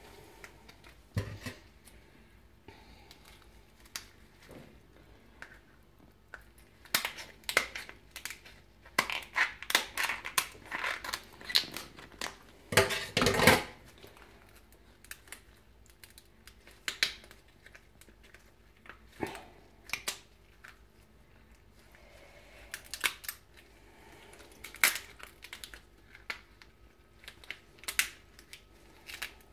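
Cooked lobster shell being cracked and broken apart by hand: irregular cracks and crunches, coming thick and fast in the middle stretch, then scattered.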